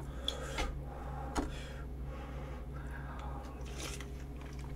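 Quiet eating sounds: a few light clicks of utensils against a bowl in the first second and a half, then a soft slurp of hot tripe-hotpot broth from a spoon near the end, over a steady low hum.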